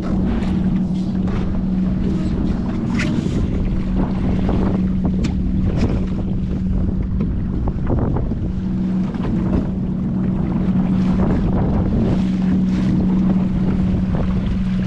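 Wind buffeting the microphone and water splashing against a small sailboat's hull, over a steady low engine drone from a nearby motorboat that drops out briefly about halfway through.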